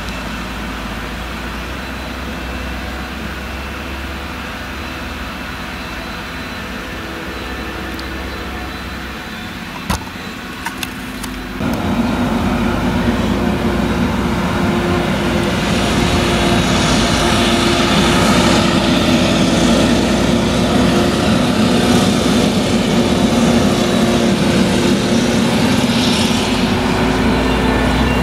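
Claas Jaguar 970 forage harvester's MAN V8 engine running under load while it chops maize, with a tractor running alongside. A few sharp knocks come about ten seconds in, and the engine sound grows suddenly louder at about twelve seconds and stays loud.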